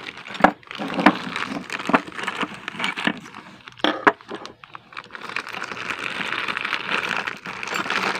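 Clear plastic zip bag crinkling and rustling as it is handled and opened, with scattered light clicks and knocks in the first half, then a steady crackly rustle over the last few seconds.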